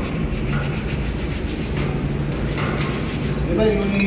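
Metal-on-metal rubbing and scraping as a hand tool is worked round inside the bore of a flanged machinery part, in strokes that swell about once a second.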